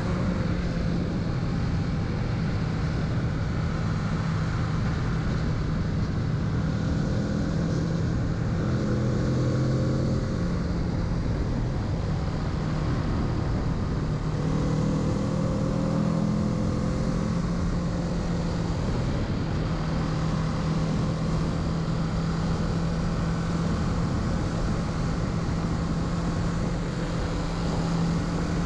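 Kawasaki Z650's parallel-twin engine running while riding, with wind and road noise over it. The engine note shifts in pitch a couple of times, about a third and about halfway through, as the throttle or gear changes.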